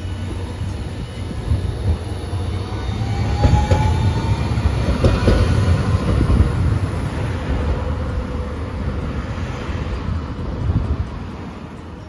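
Hiroden Green Mover LEX (1000 series) low-floor tram approaching and passing close on street-running track. Its rumble grows to its loudest about four to six seconds in, then fades away. A faint rising whine comes as it nears, and a few clacks of the wheels over the rails come as it goes by.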